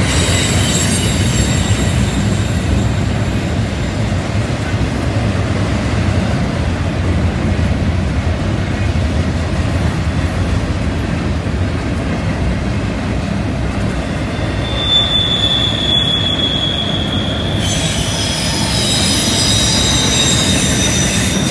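Double-stack container cars of a CN intermodal freight train rolling past on a curve: a steady low rumble of steel wheels on rail, with high-pitched wheel squeal at the start and again from about two-thirds of the way through, several squealing tones at once near the end.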